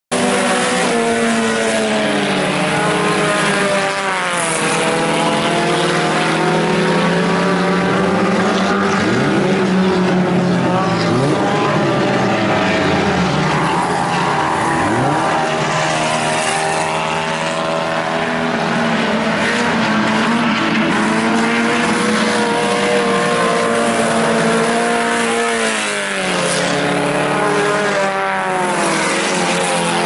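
A pack of IMCA Sport Compact race cars' four-cylinder engines running hard at racing speed, their engine notes overlapping. Twice, about four seconds in and again near the end, the pitch drops as drivers lift off and then climbs back up under acceleration.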